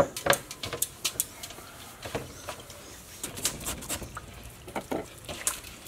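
Knife scraping the scales off a large river fish in a metal bowl: quick, irregular scrapes and clicks.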